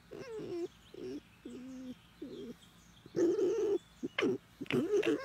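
Red fox making a series of short, wavering whines and coos while being scratched on the head, the loudest about three seconds in.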